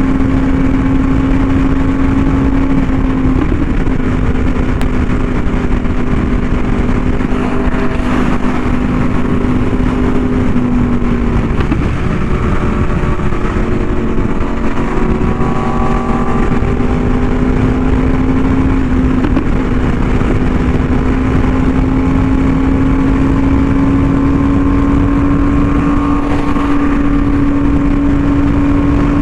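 Yamaha R1M's crossplane inline-four, breathing through an SC Project exhaust, running steadily at cruise. Its pitch sags a little about ten seconds in, then rises slowly as the bike gathers speed, over a steady rush of wind noise on the microphone.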